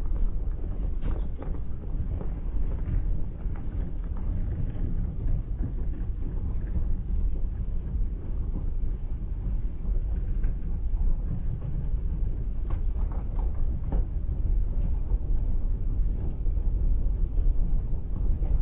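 Automatic car wash heard from inside the car: a steady low rumble of machinery and water working over the body and windshield, with a few short clicks about a second in and again around thirteen seconds in.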